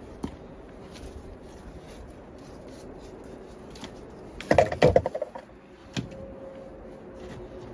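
Scattered clicks and knocks over a steady background, with a brief burst of rapid clattering about four and a half seconds in.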